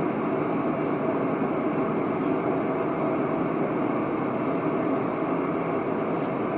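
Steady, even rushing noise of a nursery white-noise sound machine playing while a baby is settled to sleep.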